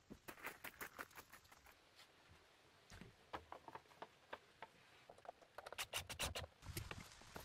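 Faint, irregular clicks and light rustling of hands handling building material, with a busier cluster near the end.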